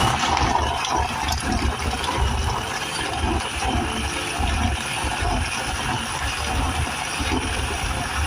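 Electric blender running steadily, blending fresh coconut to make coconut milk.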